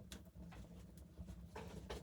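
Faint scattered clicks and scratchy rustles over a low steady hum.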